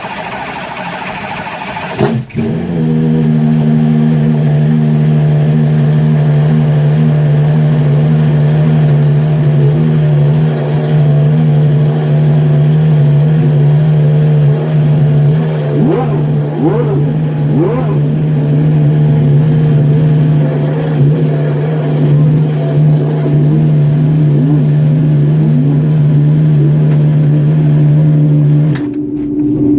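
Maserati MC12's V12 engine settling about two seconds in into a loud, very steady high idle that holds at one pitch, then drops away near the end.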